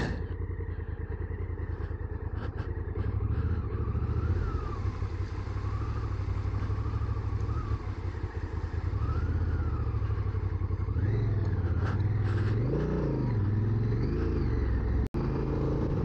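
Honda Africa Twin CRF1000L's parallel-twin engine running at low revs with a steady pulse. After about eleven seconds the revs rise and fall a few times. The sound drops out for an instant near the end.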